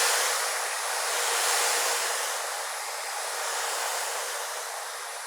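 Electric hedge trimmer running steadily. It gets a little louder about a second and a half in, then slowly fades.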